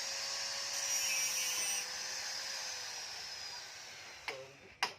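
A power tool's high whine, slowly falling in pitch and fading as it winds down, followed by two sharp clicks near the end.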